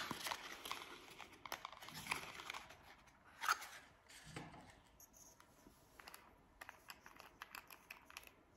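A small cardboard product box being opened, with faint tearing and crinkling of the packaging. This is followed by a few short rustles and scattered small clicks as a round cosmetic jar is handled and opened.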